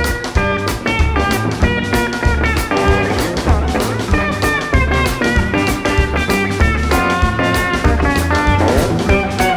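Live instrumental ragtime-fusion band: an electric guitar plays quick melodic lines over plucked double bass and a drum kit, with steady drum strokes throughout.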